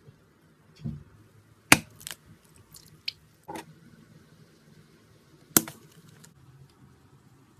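Slime-filled stress ball being cut: a handful of sharp clicks and snaps from the blade and rubber, the two loudest about two seconds and five and a half seconds in, with softer handling noises between them.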